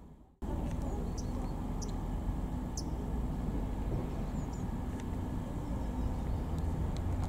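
Open-air railway-yard ambience: a steady low rumble with a few short bird chirps over it. The sound starts after a brief dropout.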